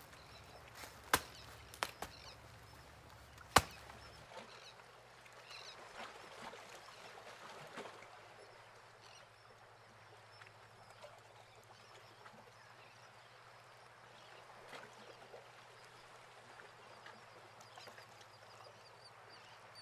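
Plastic sand toys being handled: three sharp taps in the first four seconds, the last the loudest, then faint handling noises.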